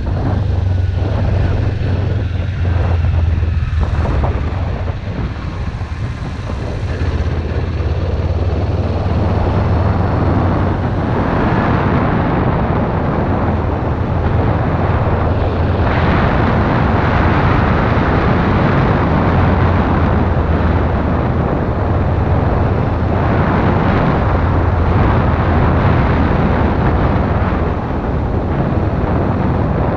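Kawasaki Ninja motorcycle engine running steadily while riding, with wind noise rushing over the microphone that grows stronger from about a third of the way in.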